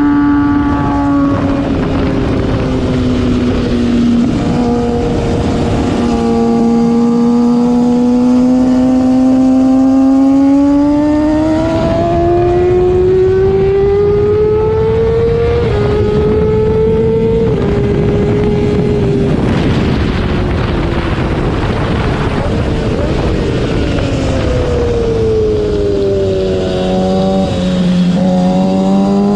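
Sport motorcycle engine at full throttle on a track lap, its note climbing steadily and stepping down at upshifts around the middle. It then falls away as the rider brakes and blips through downshifts near the end, over constant wind rush at speed.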